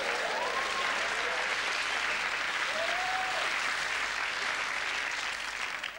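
Studio audience applauding at a steady level, with a couple of short voices calling out over it, about half a second in and again about three seconds in.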